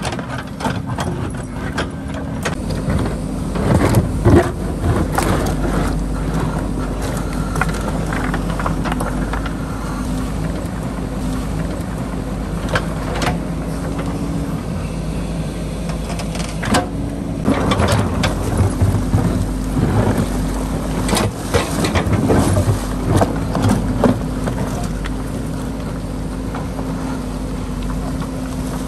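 JCB backhoe loader's diesel engine running steadily while its bucket digs into river gravel and rocks, with scattered knocks and scrapes of stones against the steel bucket, heaviest in a cluster about two-thirds of the way through.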